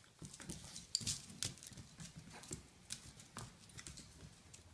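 Claws and paws of a Boston terrier puppy clicking and skittering on a hardwood floor as it pounces at a small ball, in quick irregular taps.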